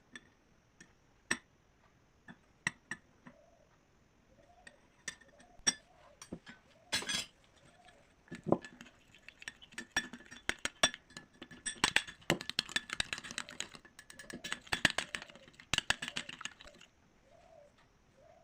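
A spoon clinking against a bowl in scattered taps, then rapid clinking for several seconds as ingredients are stirred, which stops near the end. A pigeon coos softly in the background.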